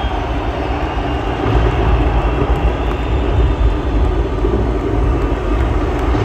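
Loud, muddy live arena concert sound picked up by a phone's microphone: a steady, bass-heavy rumble of the band and the crowd with no clear tune standing out.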